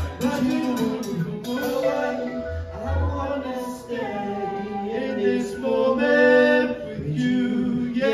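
Live band music with singing over electric and acoustic guitars, the voices carrying a sung melody line by line.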